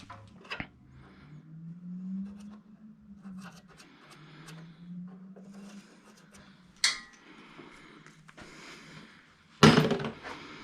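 Hand tools and small metal engine parts clinking and tapping, with a sharper clink about seven seconds in and a louder clatter near the end.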